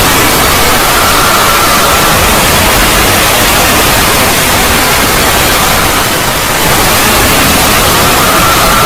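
Loud, steady static hiss like white noise, spread evenly from low rumble to high hiss. A faint whistle-like tone sits in the hiss about a second in and again near the end, and the level dips slightly around six and a half seconds in.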